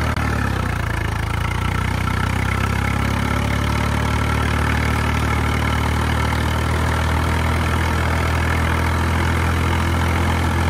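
A diesel tractor engine running steadily at a constant speed. Its note wavers for the first couple of seconds, then settles.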